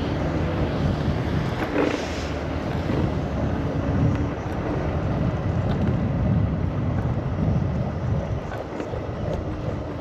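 Steady wind buffeting on the microphone and the low rumble of a Segway Ninebot Max G2 electric kick scooter rolling along a trail, with the loudness easing slightly near the end.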